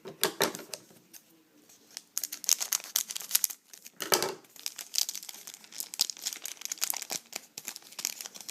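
Trading-card pack wrapper crinkling and tearing as a pack is opened and its cards are handled: a run of quick crackles and rustles, sparse for about a second near the start, then dense.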